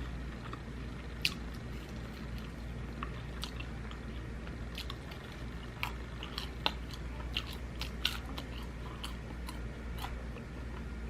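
Close-miked eating: a person biting and chewing fried Cajun corn on the cob, with irregular sharp mouth clicks over a steady low hum.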